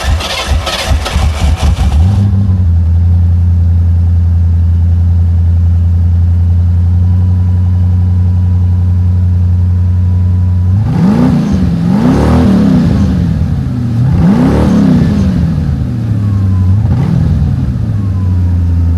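1988 Ford Crown Victoria's V8 cranking on the starter and catching about two seconds in, then running at a steady idle. About halfway through it is revved four times, each rev rising and falling back to idle, and it sounds muffled.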